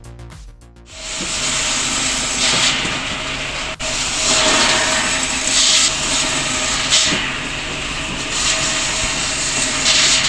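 Homemade circular saw running with a steady whine, starting about a second in, with loud hissing surges each time the blade bites into wood, repeated several times.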